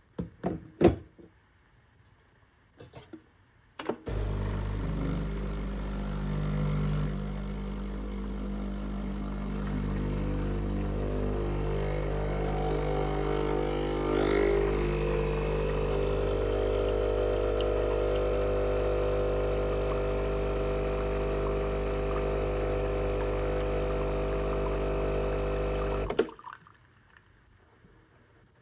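A few clicks and knocks, then a Sage espresso machine's pump hums steadily for about twenty-two seconds, the run of a shot being pulled, and cuts off abruptly.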